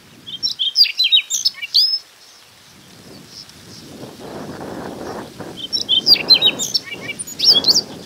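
Male Siberian rubythroat singing: two short, quick phrases of high, varied whistled and warbled notes, one at the start and one about six seconds in. A low rushing noise runs under the second phrase.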